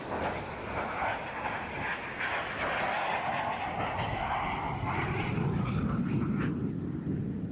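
An airplane flying past: a rushing engine noise whose higher part fades after about six seconds while a deeper rumble builds in the second half.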